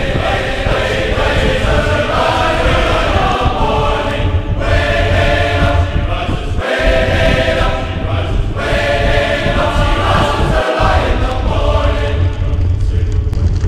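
Choral, chant-like singing with several sustained pitches that shift every couple of seconds, over a steady low rumble of wind on the microphone. The low rumble cuts out briefly twice, and the singing fades near the end.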